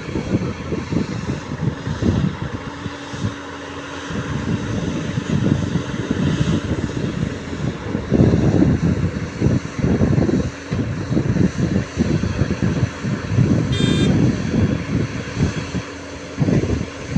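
Diesel engine of heavy earth-moving machinery running, with uneven low rumble from wind buffeting the microphone. A brief high beep sounds about fourteen seconds in.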